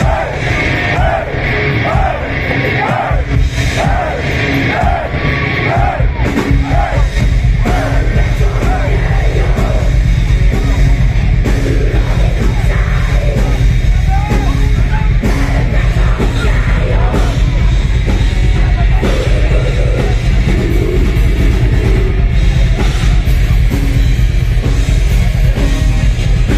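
Thrash metal band playing live through a concert PA, heard from within the crowd: distorted electric guitars, bass and drums. The low end is thinner for the first few seconds, and the full band comes in heavier about six seconds in.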